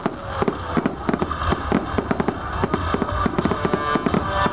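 Aerial firework shells bursting in quick succession, a dense run of sharp bangs and pops, with music playing in the background.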